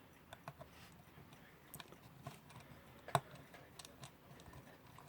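Faint, scattered clicks and taps of small clock parts being handled and fitted by hand during reassembly of a synchronous electric alarm clock, with one sharper click a little after three seconds in.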